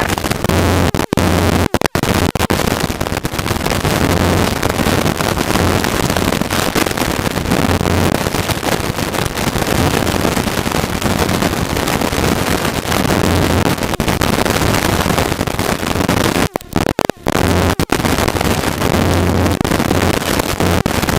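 Helicopter in flight: loud, steady rotor and engine noise in the cabin, with a low hum that swells now and then and a few brief cutouts.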